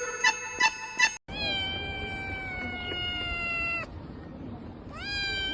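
A domestic cat meowing: one long drawn-out meow of about two and a half seconds, sagging slightly in pitch, and a shorter meow near the end that rises at its start. Before it comes about a second of piano-like music with repeated notes that cuts off abruptly.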